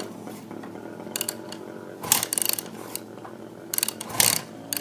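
Kickstarting a freshly rebuilt 2005 Yamaha YZ450F four-stroke single: several hard kicks, each a short clatter of the kick gear ratcheting and the engine turning over, without it catching yet. This is the first attempt to fire the rebuilt engine.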